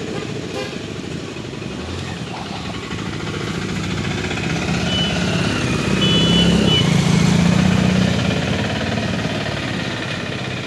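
A motor vehicle's engine running close by, swelling louder in the middle and easing off near the end, with a few short high beeps in the middle.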